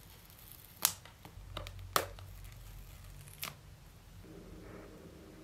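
Hands handling a new iPhone 13 and its box contents: a few sharp clicks and taps, the two loudest about a second apart, with softer ones after.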